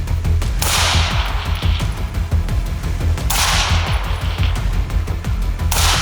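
Background music with a heavy bass beat, punctuated by a loud crash-like hit three times, each fading over about a second.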